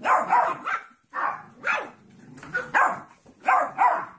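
Small black-and-tan puppy barking in short, sharp yaps, about eight in quick succession.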